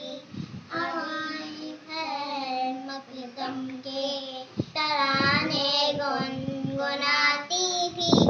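Two young girls singing an Urdu naat together in unison, in a steady devotional melody. A brief thump sounds near the end.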